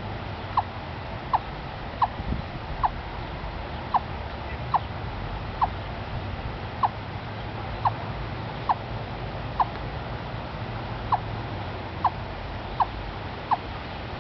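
Eastern chipmunk giving its repeated chuck call. Short, slightly falling clucks come a little more than once a second, like a wood block.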